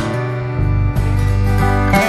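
Background music led by acoustic guitar over a steady bass, the chords changing every second or so.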